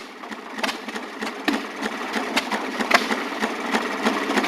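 Small two-stroke gasoline engine of an early-1930s Maytag washing machine running steadily at its one speed, with a rapid, uneven clatter of sharp ticks.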